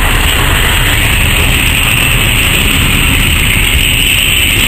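Loaded Eaos open freight wagons rolling past at close range: a loud, steady rumble of steel wheels on the rails.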